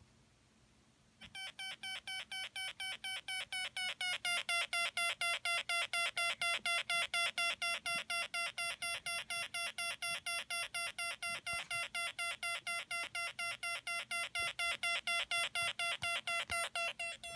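Electronic siren kit built around a 555 timer, sounding through its small speaker: a shrill electronic tone pulsing rapidly, about four or five times a second. It starts about a second in and grows louder over the next few seconds as the volume knob is turned up.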